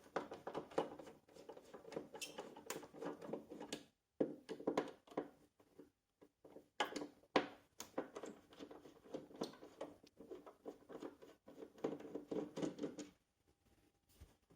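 Irregular clicks, small knocks and light scraping of a hand screwdriver working the stand screws out of the back of a flat-screen TV.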